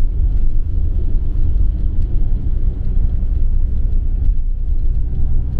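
A steady, loud low-pitched rumble with a restless, wavering level.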